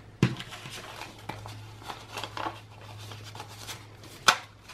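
Paper banknotes rustling and flicking as a stack of bills is handled and fanned, with a sharp click near the end.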